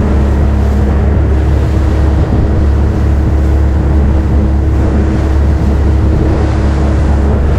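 Small fishing boat's engine running steadily under way, a constant low drone with wind and water noise over it.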